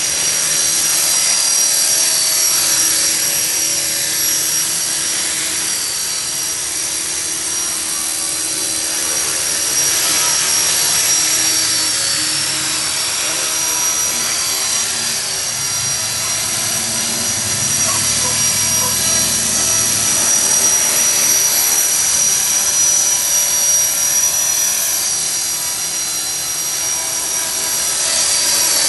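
EXI 450 electric RC helicopter in flight: a steady high-pitched whine from its motor and drivetrain over the rush of the rotor blades, rising and falling a little as it manoeuvres. A low rumble swells up past the middle.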